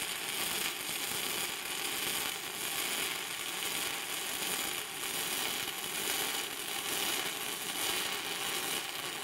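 Stick (shielded metal arc) welding arc on an Everlast PowerArc 200ST, crackling and sizzling steadily as the rod burns and throws spatter.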